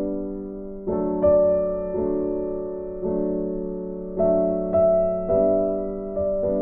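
Background piano music: soft chords struck about once a second and left to ring.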